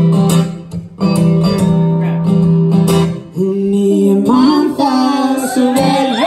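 Acoustic guitar strummed in chords, with a singing voice coming in over it about halfway through.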